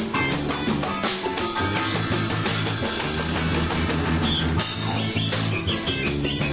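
Rock band playing loud, with a drum kit and distorted electric guitars over a bass line.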